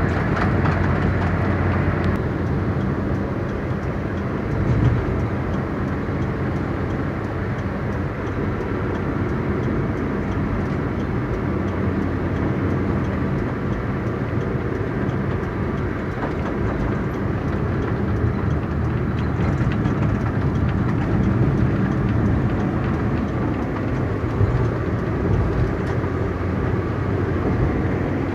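A car driving at steady speed: a continuous low engine hum under the rush of tyres on the road, with small swells in level.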